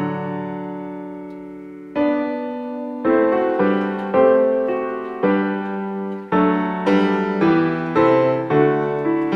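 Background piano music: a chord rings and fades for about two seconds, then a gentle melody of notes struck about every half second.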